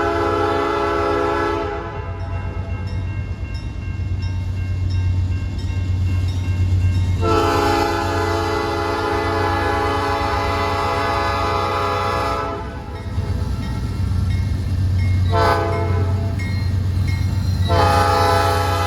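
Freight-train diesel locomotive sounding its multi-chime air horn in the long, long, short, long grade-crossing pattern, over the steady low drone of the locomotive engines.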